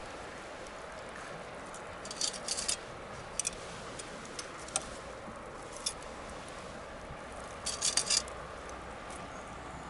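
Wood bonfire crackling: sharp pops and snaps over a steady low hiss, with quick clusters of several pops about two seconds in and again near eight seconds.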